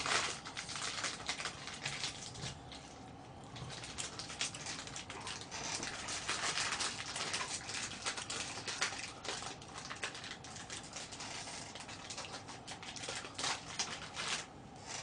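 Irregular rustling with light clicks and taps from things being handled on a table.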